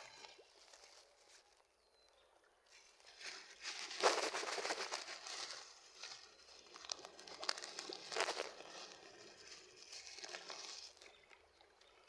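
Rustling, crackling handling noise that comes in uneven surges, loudest about four seconds in and again near eight seconds.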